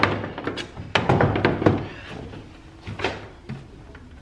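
Knocks and thuds of a heavy 72V lithium battery module being handled and settled into a golf cart's battery compartment, with its cables being moved. A cluster of knocks comes in the first two seconds and a couple more around three seconds in.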